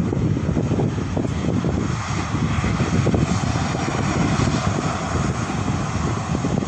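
Boeing 737 airliner's twin jet engines at takeoff thrust during the takeoff roll: a steady, loud, deep rumble with a hiss above it.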